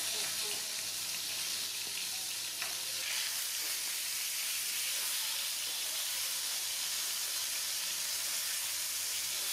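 Two whole climbing perch (Anabas testudineus) frying in hot oil in a nonstick pan, a steady sizzle, with one faint click about two and a half seconds in.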